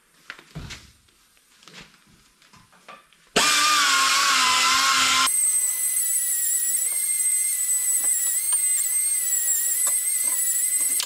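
Air-powered rotary polisher with a small wool pad buffing a stainless-steel muffler with 3M compound. After a few faint knocks, it starts suddenly about a third of the way in and runs steadily with a high whine that steps up in pitch about two seconds later.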